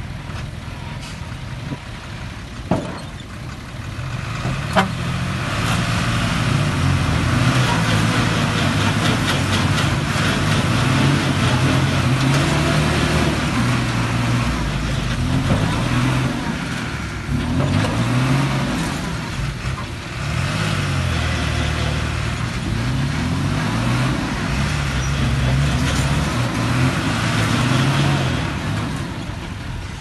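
Diesel dump truck engines running hard under heavy load while a truck stuck in mud is pulled free. About four seconds in the revs climb, and then they keep rising and falling. Two sharp knocks come near the start.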